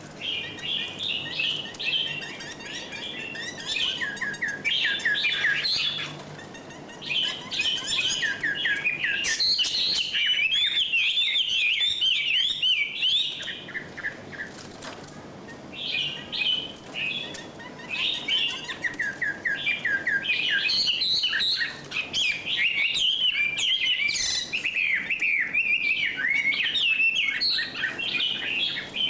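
Small birds chirping and twittering in a busy, continuous stream of quick high notes, easing off briefly about a quarter of the way in and again around the middle.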